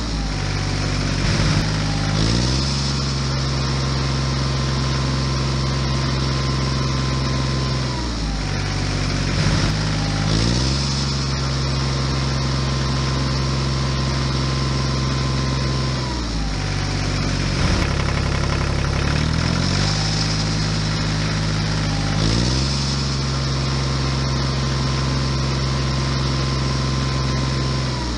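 Tractor engine running steadily at a low pitch. Every eight seconds or so it dips and climbs back in pitch in the same repeating pattern, like a looped engine recording.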